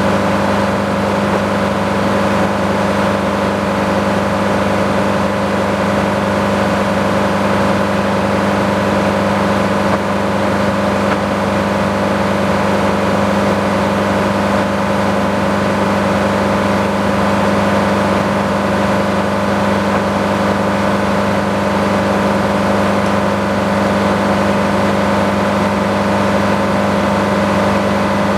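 Sawmill running steadily, a constant engine hum with no change in pitch or level.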